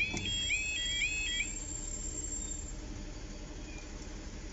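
Level crossing audible alarm sounding a rapidly repeating rising two-tone warble, which cuts off about a second and a half in as the barriers finish lowering. After that there is only a low steady background hum.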